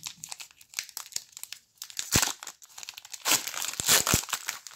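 Foil wrapper of a Prestige basketball trading-card pack crinkling in the hands as it is torn open, with louder crackling bursts about two seconds in and again near the end.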